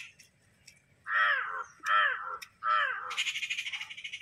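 A crow cawing three times, about a second apart, with each harsh call falling in pitch. Near the end a fast, high rattling chatter starts.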